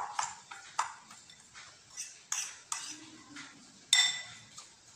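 A metal spoon clinking against a glass bowl while stirring a grated coconut and jaggery filling: scattered light clinks, the loudest about four seconds in, ringing briefly.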